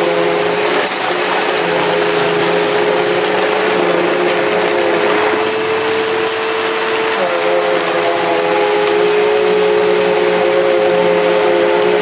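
Hoover Elite Rewind upright vacuum cleaner running steadily on carpet: a smooth motor hum over a loud rush of air. The hum rises a little in pitch about five seconds in and drops back two seconds later.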